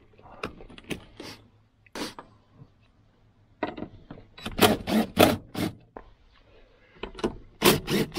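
DeWalt cordless driver spinning out the seat's 14 mm floor bolts in two bursts of short, sharp pulses, about three and a half seconds in and again about seven seconds in. Before that there are a few light clicks of plastic trim being handled.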